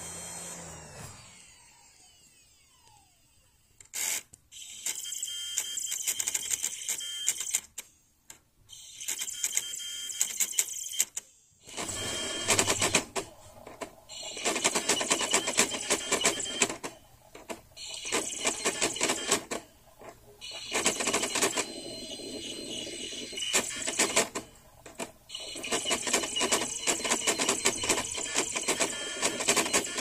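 A 1998 Matsushita UJDA150L laptop CD-ROM drive making loud mechanical clattering in repeated bursts of one to two seconds with short pauses between, sounding kind of like a printer. About a second in there is a falling whine.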